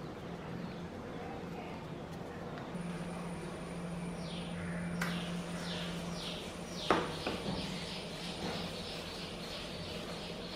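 Scrub pad rubbed back and forth over a wet stone countertop spread with baking soda, in quick repeated strokes from about four seconds in, over a steady low hum. One sharp knock comes near the middle.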